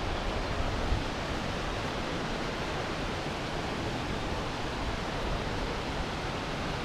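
Steady, even rushing noise of a large waterfall heard from across the lake, with no distinct events standing out.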